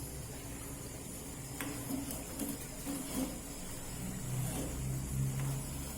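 Low steady rumble of a pot of water with palm sugar, tamarind and ginger simmering on a gas stove, just come to the boil, with a couple of faint clicks as it is stirred.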